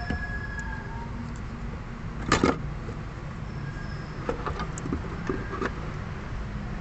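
Knocks and clicks of a fuel filter canister being handled and fitted into its mounting bracket: one louder clatter about two seconds in, then a few lighter clicks, over a steady low rumble.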